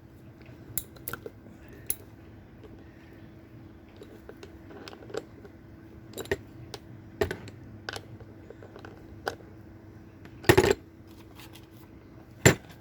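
Irregular metal clicks and clinks of a socket wrench and tools being worked on a roller skate truck's kingpin nut, with two louder knocks near the end.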